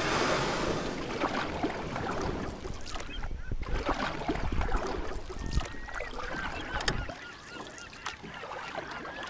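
Gulls calling in short, repeated cries over wind buffeting the microphone, the wind easing about seven seconds in.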